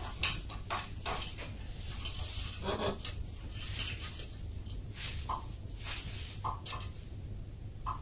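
Irregular taps, knocks and scuffles of a cat and a macaw moving and tussling on a wooden perch, with a few brief squeaks in the second half.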